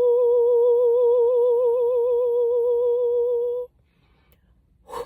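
A woman humming one long held note with a slow wobble in pitch. It stops abruptly about three and a half seconds in, followed by a brief soft sound near the end.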